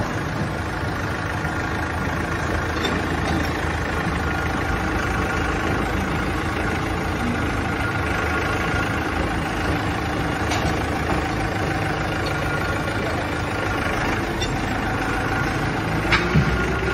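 Forklift engine running steadily as it pushes a flat-pack container house module into a shipping container. A few short knocks are scattered through, with a sharper double knock near the end.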